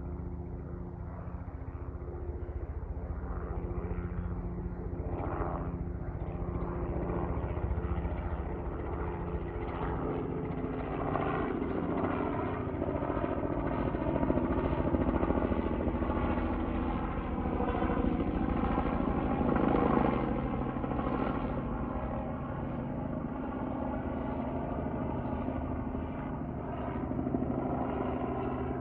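Aircraft engines running, a steady engine hum with a noisy rush that swells to its loudest about two-thirds of the way through and then eases off, as a plane passes.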